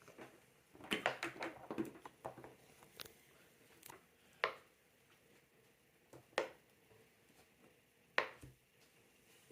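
Short, sharp pops and clicks from playing a silicone pop-it fidget board game: a quick flurry about a second in, then single pops every second or two.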